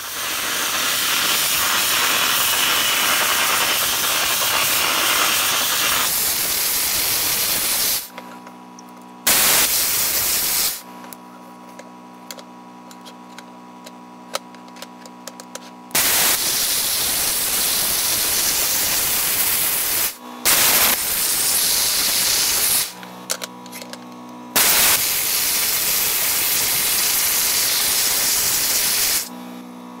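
Dry ice blasting gun spraying onto an aluminium intake air control valve to blast off EGR carbon deposits: a loud, steady hiss that comes in bursts, first one of about eight seconds, then four shorter ones of one to four seconds. Between the bursts there is a quieter, steady machine hum.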